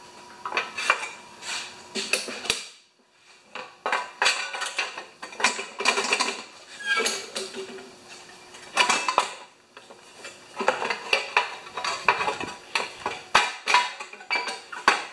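Cover of a Briggs & Stratton Quantum mower engine, carrying the rewind starter, being worked back into place on the engine by hand: a run of clattering knocks and scrapes, some sharp and loud, with a brief lull about three seconds in.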